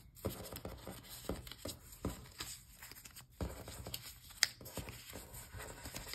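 Small paper sticker cards being gathered up off a table and shuffled into a stack by hand: soft rustling and light taps, with one sharper tick a little past four seconds in.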